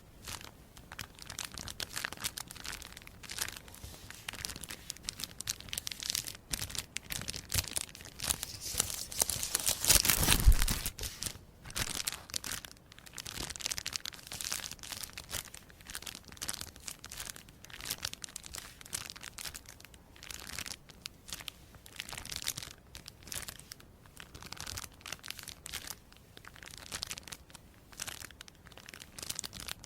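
Close, dense crinkling and tearing of some crisp material being handled, a continuous run of small crackles. It gets louder around ten seconds in, with a low bump.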